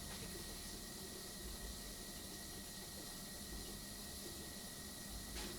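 Steady low background hiss of room tone with a faint, constant high-pitched whine, and a faint tick near the end.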